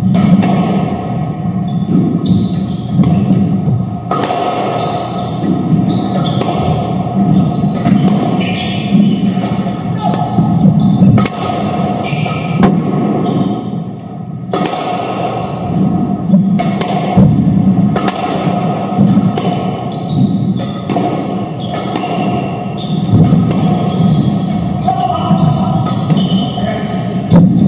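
Squash ball being hit in a doubles rally: a string of sharp, irregular thuds as racquets strike the ball and the ball hits the court walls.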